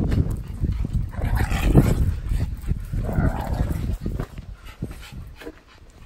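Small dogs (Pomeranians) whining with short yips, about a second in and again around three seconds in, over a loud low rumble.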